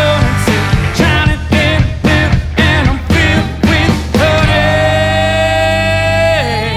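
Live rock band playing: steady drum hits with guitars and singing. From about four seconds in, the singer holds one long note, which drops away near the end as the band winds down.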